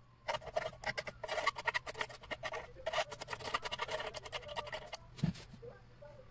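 Rapid, dense scraping strokes in two runs with a short break near the middle, then a single low thump about five seconds in.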